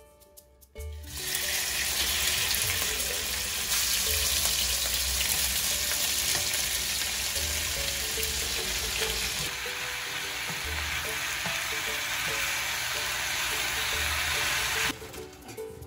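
Sliced pork sizzling in hot oil in a frying pan, starting suddenly as the meat goes in, then frying on as shredded cabbage and carrot are added and tossed with tongs. The sizzle cuts off suddenly near the end.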